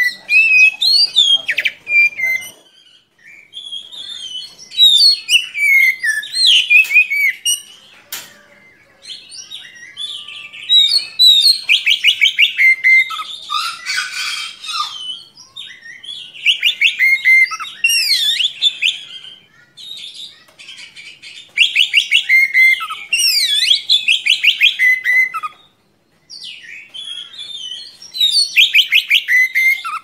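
Oriental magpie-robin (kacer) singing in long, varied phrases of quick whistled glides and rapid rolling trills, with short pauses between phrases.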